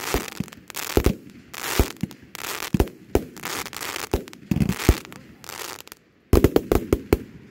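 Aerial fireworks going off overhead: sharp bangs about a second apart with crackling between them as the stars burst. There is a short pause about six seconds in, then a quick volley of bangs.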